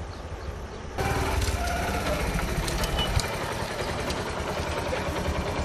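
Small motorcycle engine running with a steady low, rapid putter, getting louder about a second in as the bike comes close.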